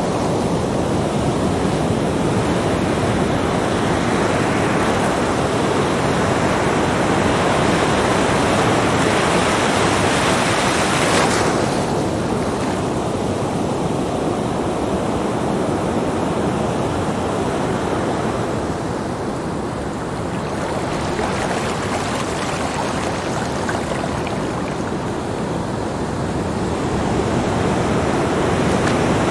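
Small ocean waves breaking and washing up a sandy beach: a continuous rush of surf that swells and eases, with one sharper crash about eleven seconds in.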